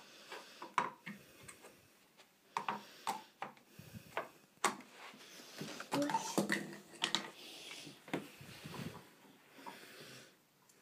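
Scattered light knocks and clicks of small plastic Play-Doh tubs and toys being picked up and set down on a wooden table.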